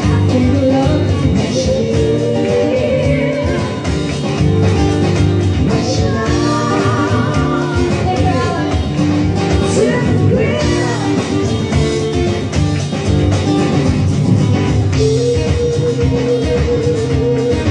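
A small live band performing an upbeat song: a woman singing lead over a strummed guitar and a drum kit.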